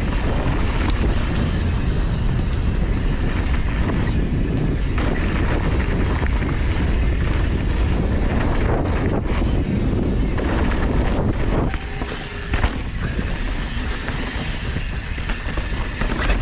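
Wind rushing over the microphone and knobby tyres rolling over a dirt trail as a downhill mountain bike descends at speed, with a few knocks over bumps. The rush eases a little about twelve seconds in.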